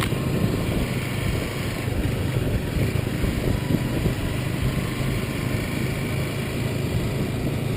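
Motorcycle engine running steadily at low road speed, heard from on the bike, with a dense rushing noise over it.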